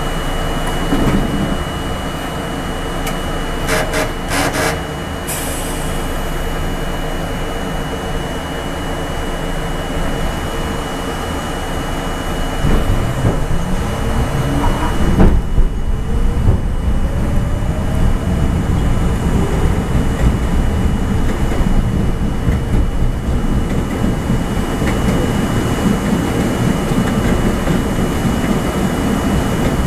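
New York City subway train standing at an elevated station, with a few short clicks about four seconds in, then pulling away about twelve seconds in: its traction motors whine rising in pitch as it picks up speed, and the running noise grows louder.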